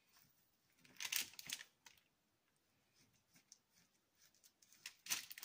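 Knife cutting through a cooled, firmed-up brownie on parchment paper: faint scraping and paper rustle in two short bursts, about a second in and near the end.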